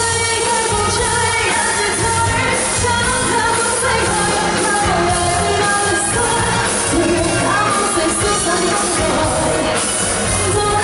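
A singer performing a pop song live over a full backing band, loud and continuous.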